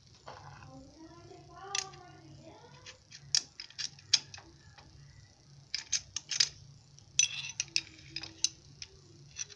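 Irregular sharp metallic clicks and clinks of hand tools working on a motorcycle clutch assembly as it is tightened, over a low steady hum. A brief wavering, voice-like call rises and falls about a second in.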